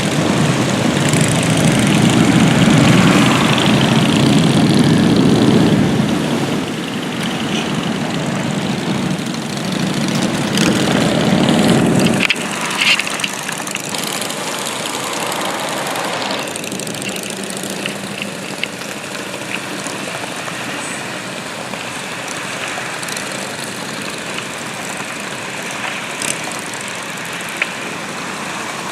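Motorcycle engines riding past in a procession, loudest in the first several seconds and again around ten seconds in, then dropping abruptly about twelve seconds in to a steadier, quieter engine and traffic noise.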